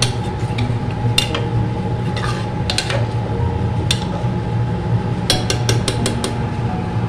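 Metal spoon stirring chunks of potato and aubergine in an aluminium pressure cooker, scraping and clinking against the pot at irregular moments, with a quick run of clinks about five seconds in. A steady low hum runs underneath.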